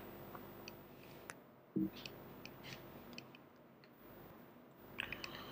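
Quiet room tone with a few faint, scattered clicks and a soft low thump a little under two seconds in.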